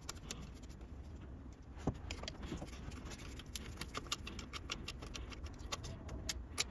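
Screwdriver tip ticking and scraping against the small breaker-point screws and plate inside an open ignition distributor: light metallic clicks, scattered at first and much busier from about halfway.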